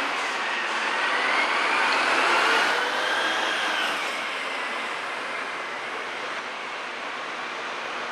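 Heavy construction machinery running close by: a steady mechanical rush with a high whine that slowly wavers up and down, loudest in the first few seconds and then easing off.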